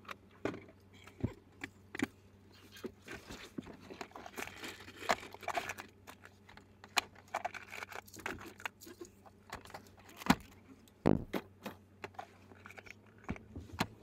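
Scattered clicks, knocks and jangling rattles inside a Toyota Land Cruiser's cab as it creeps along, over a low steady engine hum.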